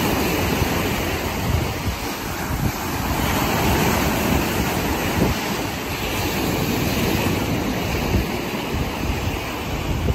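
Small waves breaking and washing up a sand and pebble shore in a steady surf wash that swells and eases, with wind buffeting the microphone.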